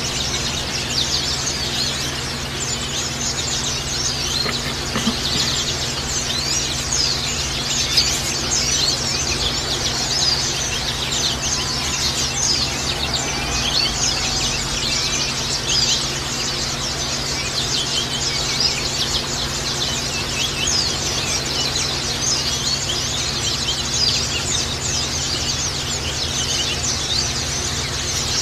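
White-eyes (pleci) twittering: a dense, unbroken stream of rapid, short high chirps overlapping one another, as in a pleci lure recording.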